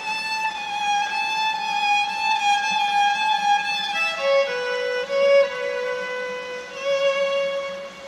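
Solo violin played with the bow: a long high note held for about four seconds, then stepping down through a few shorter notes to a lower note that is held to the end.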